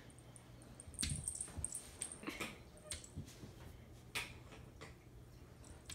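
A cat's paws thumping and scrabbling on a wooden floor as it pounces at a laser dot: a run of quick taps and thumps from about a second in to just past four seconds.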